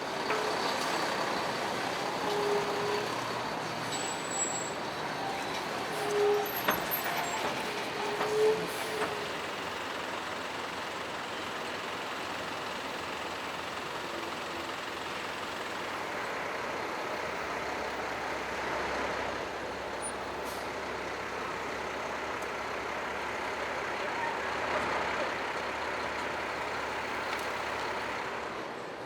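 City street traffic noise, with trucks and buses running and the hiss of air brakes. A few short pitched beeps sound in the first nine seconds.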